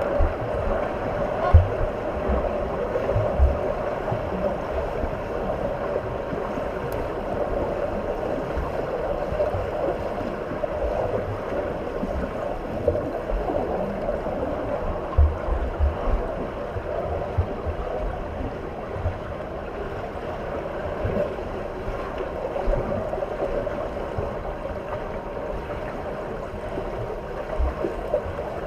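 Steady rushing and sloshing of water, with occasional low thumps.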